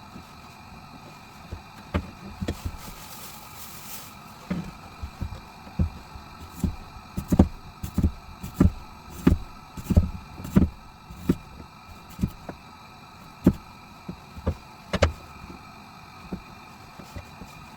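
Irregular dull knocks and thumps, in a loose run of one or two a second through the middle, over a faint steady hum.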